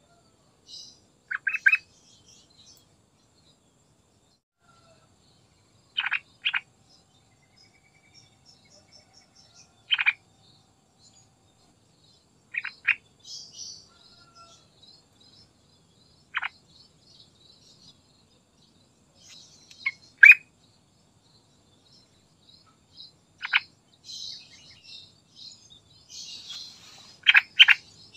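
Yellow-vented bulbul (trucukan) calling: short, sharp notes, single or in quick pairs, every few seconds. Faint high twittering runs between them and grows busier near the end.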